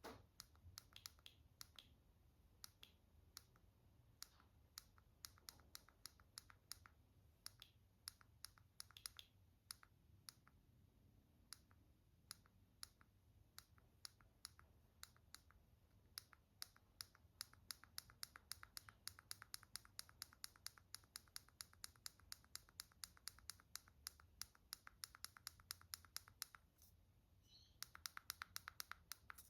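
Small sharp clicks as a flash trigger is fired again and again, scattered at first, then a steady run of about two or three clicks a second through the second half, and a quick flurry of clicks near the end.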